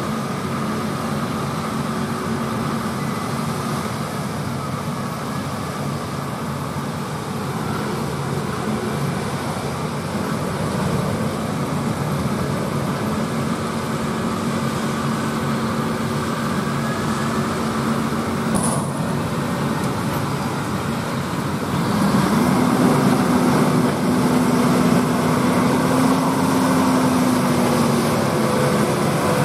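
John Deere 8R tractors' diesel engines and the KMC peanut pickers they pull run steadily. The sound grows louder about three-quarters of the way through as one tractor and picker passes close. A single short click sounds a little past halfway.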